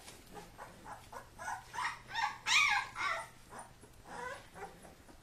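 Kuvasz puppies play-wrestling, giving a run of short yips and play barks, with one louder, high yelp about halfway through.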